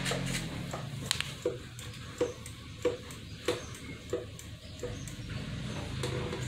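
Light clicks and taps repeating about every two-thirds of a second, from hands working the motorcycle's front brake during bleeding, over a low steady hum.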